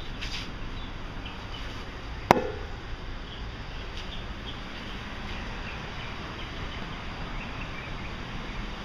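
Faint birds chirping over a steady outdoor background hiss, with one sharp click about two seconds in.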